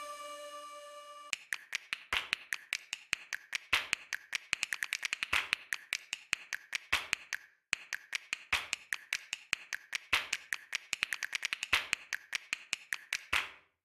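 A fast run of sharp clicks or taps, about five or six a second and uneven in loudness, starting about a second in, breaking off briefly past the middle and stopping just before the end.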